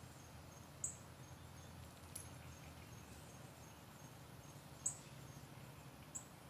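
Quiet garden ambience: a faint, even high pulsing from an insect, with four short high chirps spread through it.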